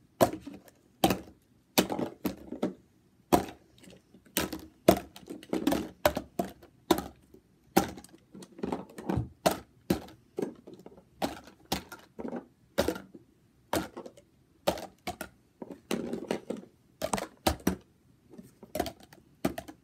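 Small plastic PocketBac hand sanitizer bottles being handled and set down one at a time while being counted. Each gives a sharp clack, some with a duller knock, about one or two a second at an uneven pace.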